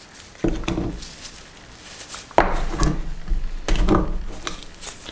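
Metal knocks and small clicks from a motorcycle front brake caliper being handled against a steel bench vise while its R-clip is worked out of the pad pin. There are three louder knocks, about half a second, two and a half and nearly four seconds in.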